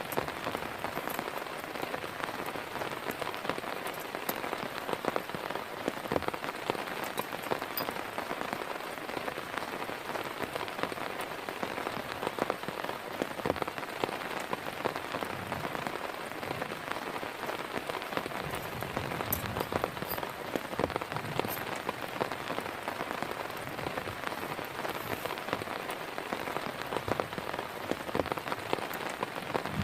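Heavy rain falling steadily, with many individual drops striking close by as sharp ticks over the even hiss of the downpour.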